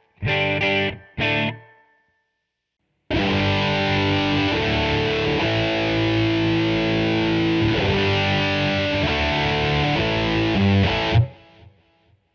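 Electric guitar played through a distorted Line 6 POD 2.0 amp-modelling patch, recorded direct: two short chord stabs, a second's pause, then about eight seconds of held chords that cut off and ring out near the end.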